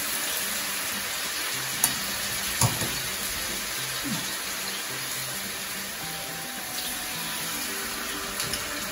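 Sugar-coated sweet potato slices sizzling in hot oil: a steady frying hiss, with a couple of sharp clicks from metal tongs about two seconds in.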